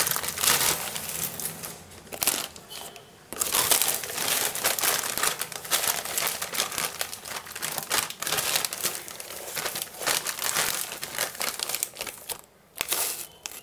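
Rustling and crinkling of wheat flour being scooped out with a measuring cup and tipped into a ceramic bowl, three cupfuls, in bursts with short pauses between them.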